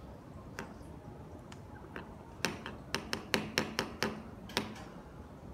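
Metal tip of a screwdriver tapping on a ceramic tile floor: a few scattered clicks, then a quick run of about ten sharp taps over two seconds in the middle.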